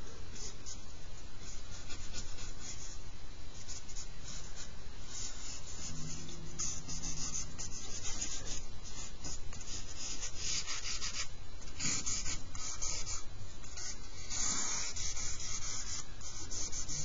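Charcoal scratching across drawing paper in quick, repeated shading strokes. The strokes come sparse at first and grow thicker and louder from about the middle on.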